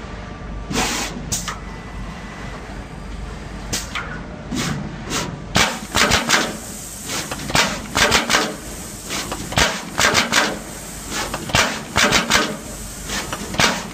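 Through-hole auto insertion machine working, its insertion head clacking sharply as it drives components into a circuit board. A few scattered clacks at first, then quick bunches of clacks, several a second, from about five seconds in.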